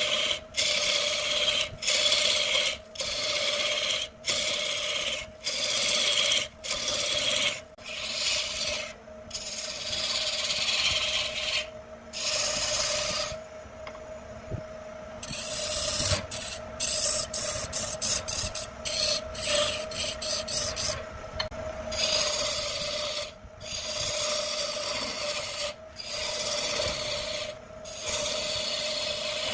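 Turning tool cutting a spinning wooden spindle on a wood lathe: a rough scraping hiss broken by many short gaps, over the lathe's steady motor hum. The cutting drops away for about two seconds near the middle, leaving mostly the hum.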